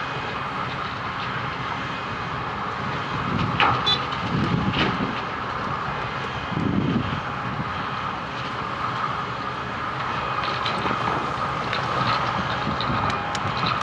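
Wirtgen W210i cold milling machine at work, milling the road base: a steady heavy mechanical rumble with scattered clatter and knocks.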